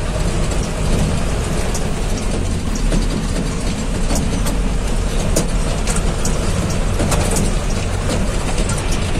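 Cabin noise of a bus driving over a broken, potholed road. The engine runs with a steady low rumble, and the body and fittings keep rattling with frequent sharp knocks.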